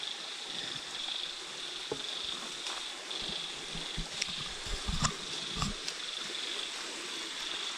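Insects chirring in a steady high-pitched band that swells and fades, with a few light knocks and footfalls on rocks.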